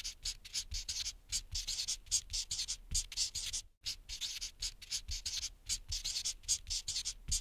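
Marker pen scratching in quick, repeated drawing strokes, with a brief pause about four seconds in.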